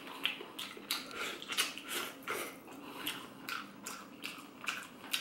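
Close-miked eating sounds: a person chewing a mouthful of beef noodle soup, with wet mouth clicks and lip smacks coming irregularly, several a second.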